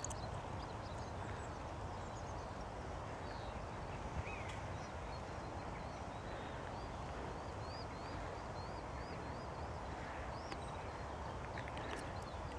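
Distant birds calling over a steady low rumble. A run of short, high, rising-and-falling notes, about three a second, fills the middle stretch.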